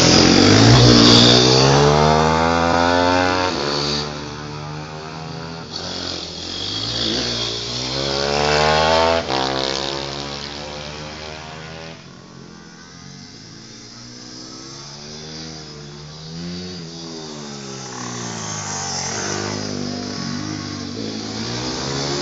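Pit bike engines revving hard as they pass, pitch repeatedly climbing and then dropping. Loudest in the first few seconds and again around nine seconds, falling to a more distant drone about twelve seconds in, then building again toward the end.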